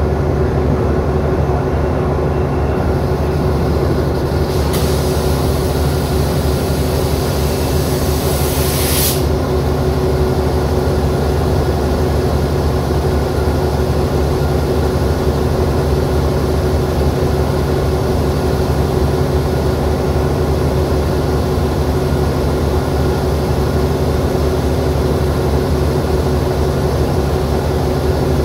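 Alsthom AD24C diesel-electric locomotive idling steadily. About five seconds in, a burst of compressed-air hiss lasts about four seconds and cuts off suddenly.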